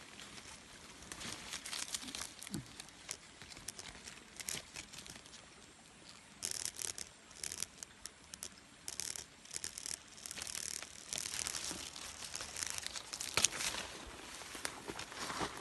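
Leaves and twigs rustling and crackling in irregular bursts as someone pushes through dense bushes and grabs a leafy branch to pick a fruit.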